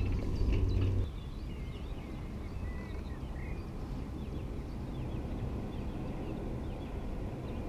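Small birds chirping sporadically over a steady low rumble of wind on the microphone. The rumble is louder for the first second and drops off abruptly.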